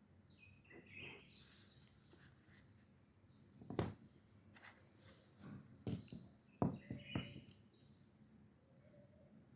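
A few light knocks and taps on a desk, with faint squeaky scratching about a second in.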